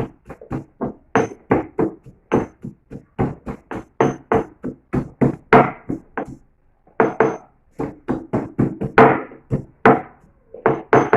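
Pestle pounding fresh ginger in a small traditional mortar: a quick run of ringing thuds, about three a second, with a short pause a little past halfway.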